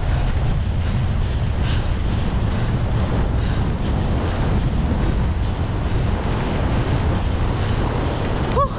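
Wind buffeting the microphone: a steady, loud, low rumble from air rushing past a camera on the move. There is a brief short chirp near the end.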